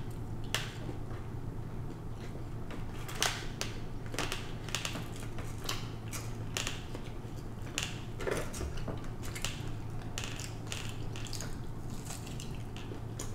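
Close-miked eating sounds: scattered small wet clicks of chewing and handling of a fast-food container, then a bite into a glazed chicken tender near the end, over a low steady hum.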